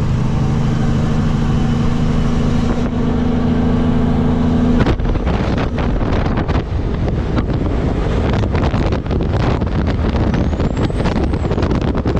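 Diesel truck engine running steadily on the road, a smooth hum heard from inside the cab. About five seconds in the sound switches abruptly to wind buffeting the microphone over engine and road noise.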